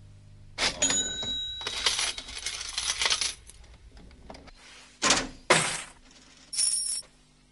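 Cash register sound effect: a bell rings about a second in over a jangle of coins that runs for a couple of seconds, then two sharp clunks and a short high ring near the end.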